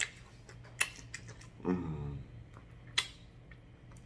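Close-miked eating sounds: sharp mouth clicks and lip smacks while chewing, with a short hummed "mm" about halfway through.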